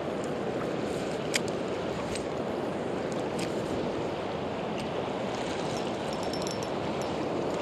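Steady rush of a river running high and fast, an even wash of water, with a few faint clicks over it.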